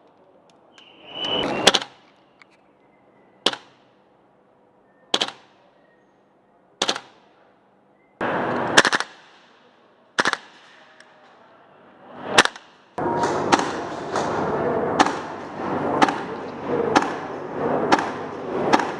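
KWA AKG gas blowback airsoft rifle firing semi-auto: single sharp shots about every second and a half to two seconds. From about two-thirds of the way in, the shots come faster, over a steady rushing noise.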